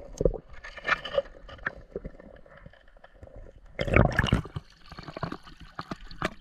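Water sloshing and knocking around a camera held under the surface of a shallow river, with scattered small clicks. About four seconds in comes a louder, short splash of water.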